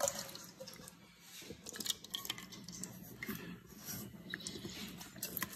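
Thick chunky canned soup sliding and plopping out of a tin can into a dog bowl, with scattered small clicks and taps.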